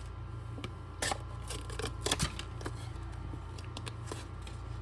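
Pokémon trading cards being handled: a few short, scattered clicks and crinkles of card and wrapper over a steady low hum.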